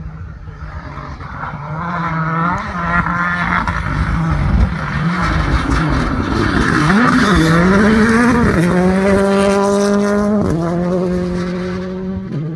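Rally car engine passing at speed, revving up and down through gear changes. It is loudest in the middle, holds a high steady rev for about two seconds, then drops suddenly about two seconds before the end.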